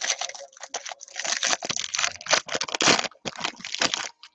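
Foil wrapper of a trading-card pack crinkling and tearing as it is pulled open by hand, a dense run of crackles that stops about four seconds in.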